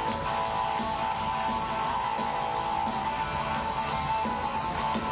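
Music led by strummed guitar, with a steady beat.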